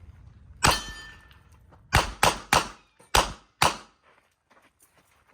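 Smith & Wesson 929 9mm competition revolver firing six shots: one a little under a second in, then five fast shots about a third of a second apart, starting about two seconds in.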